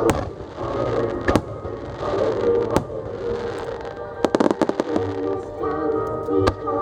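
Aerial fireworks shells bursting in sharp bangs over music played for a fireworks show, single reports about every second and a half, with a rapid string of bangs about four seconds in.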